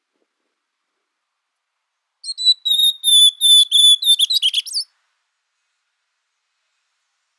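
Ultramarine grosbeak (azulão) singing one song phrase of about three seconds, starting a couple of seconds in: a string of short, clear whistled notes at a steady pitch that ends in a quicker, twisting flourish.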